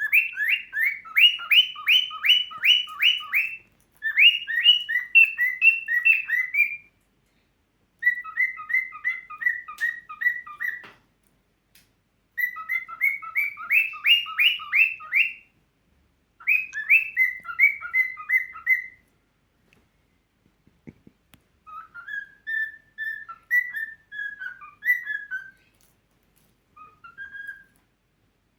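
Cockatiel whistling in quick runs of repeated notes, in several phrases of two to three seconds each with short pauses between them. In the last third the notes turn softer and more scattered.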